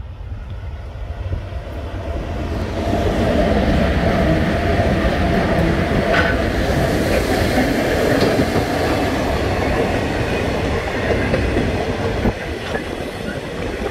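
Freight train hauled by Transnet class 18E electric locomotives passing close by: the rumble of the locomotives and wagons on the rails grows louder about three seconds in as the train draws level, then the wagons roll past with the clatter of wheels on the track.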